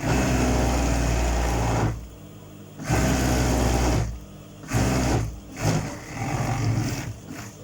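Overlock (serger) sewing machine stitching in start-stop runs: a run of about two seconds, then a one-second run and two shorter ones with pauses between, as it sews and trims off the excess along a trouser leg's side seam.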